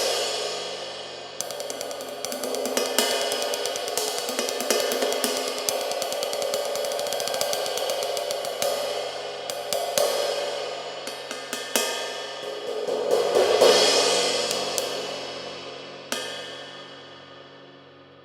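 A 21-inch lathed ride cymbal with a flat bell, struck repeatedly in quick succession so that its wash builds and shimmers. It swells to its loudest about three-quarters of the way through. A final stroke is then left to ring and fade away.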